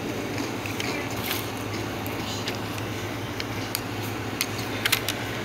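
A spoon clicking and scraping in a bowl of Frito chili pie with shredded cheese, in scattered light ticks, over a steady low hum.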